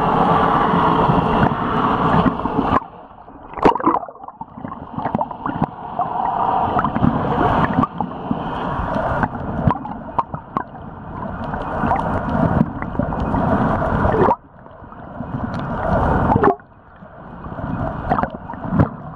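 Water rushing and gurgling around an underwater camera as the swimmer moves, swelling and fading, with scattered sharp clicks. The rush drops away abruptly three times.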